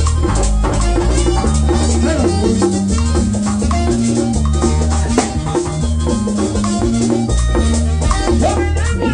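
Dominican dance music with a tambora drum and a güira scraping in a steady, fast rhythm over a bass line.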